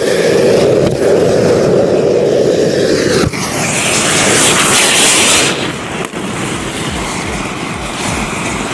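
A bank of anar fountain fireworks spraying with a loud, rushing hiss. About three seconds in the sound changes abruptly to a brighter, higher hiss, which eases off about two seconds later.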